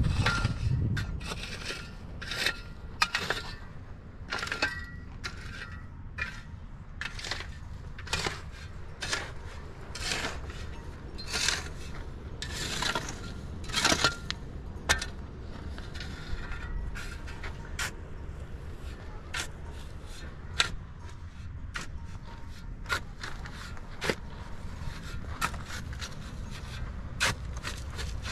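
Pickaxe and shovel digging dry, stony soil: repeated sharp strikes of the metal blade into earth and gravel, with longer scrapes as loose dirt is shovelled, about one or two a second.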